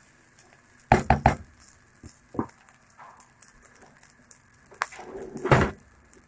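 A spoon stirring rice in a ceramic-coated pan, clacking against the pan in a quick cluster of knocks about a second in, then a few single knocks, the loudest near the end.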